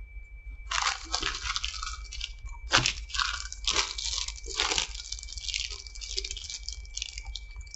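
Crinkling and crackling of a Hostess Kazbar snack cake's plastic wrapper being handled, starting under a second in, with several sharper crackles. A faint steady high whine runs underneath.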